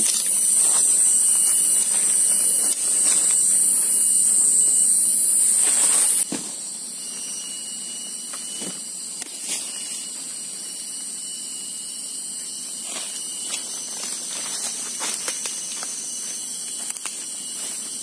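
A shrill, high-pitched insect drone, typical of cicadas in tropical forest. It wavers up and down for about six seconds, then drops a little and holds steady. Scattered rustles and snaps of people moving through undergrowth and handling branches can be heard beneath it.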